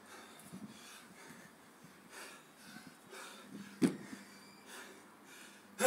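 Faint, heavy breathing of a man in the middle of a set of dumbbell snatches, with one sharp thud a little before four seconds in as the 22.5 kg dumbbell touches down on the paving at the bottom of a rep.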